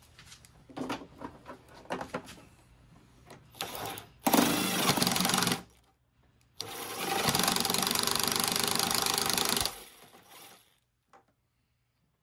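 Handheld heat gun running twice, its fan motor giving a steady hiss and whir, first for about a second and a half, then for about three seconds. A few light knocks of handling come before it.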